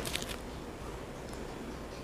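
Quiet room tone with a low steady hum, and a few faint clicks in the first half-second from fingers tapping a smartphone screen.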